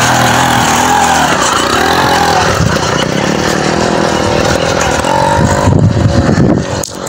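A motor vehicle engine running, louder in its low end toward the end, then a sudden drop in level near the end.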